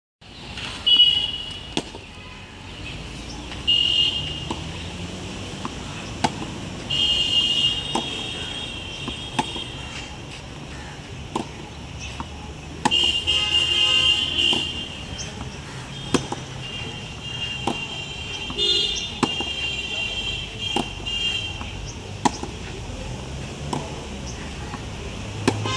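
Tennis ball being hit back and forth with rackets in a rally, a sharp pock every second or two. A high-pitched tone comes and goes several times over it.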